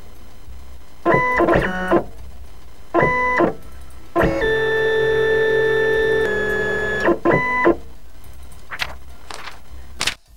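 Electronic tones: short bursts of stacked tones, then a held tone from about four seconds in lasting nearly three seconds that steps in pitch shortly before it ends, then two more short bursts. Near the end come three brief swishes.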